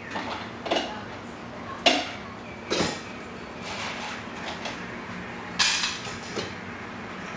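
Bowls and dishes being handled on a table: a few separate sharp clinks and clatters, the loudest about two and three seconds in and another later on.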